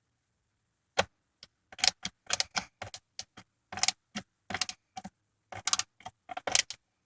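Irregular run of sharp plastic-and-metal clicks and rattles from working on a truck console lid, as the undershield's Torx screws are driven back in. The clicks start about a second in and come in uneven clusters.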